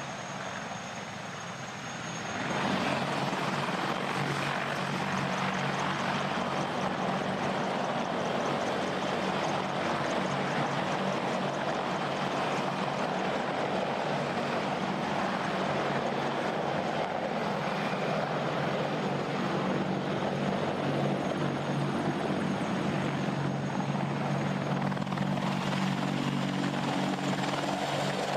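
AH-64 Apache attack helicopter flying low: steady rotor and twin-turboshaft engine noise that jumps louder about two and a half seconds in and stays loud.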